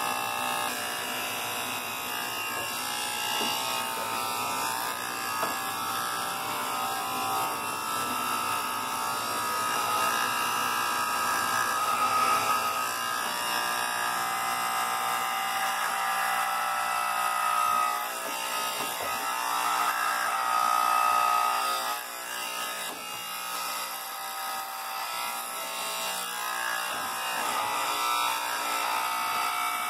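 Electric hair clippers buzzing steadily as they shave hair close to the scalp, growing louder and softer as the blades move over the head.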